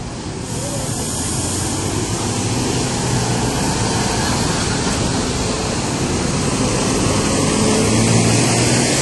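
City buses running past at close range: a Volvo hybrid bus pulls away through the crossing, then a second bus passes right by. A steady engine hum with road and street noise, growing louder toward the end as the second bus goes past.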